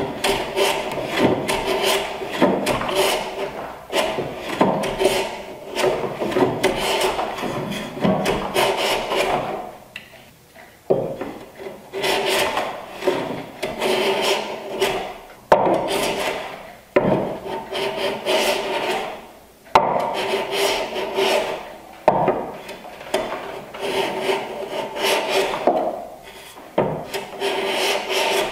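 Large bench plane taking repeated strokes across the end grain of a board held in a miter jack, a rasping shave on each pass with a faint ringing tone. It is squaring a rough band-sawn end, with short pauses about 10 and 20 seconds in.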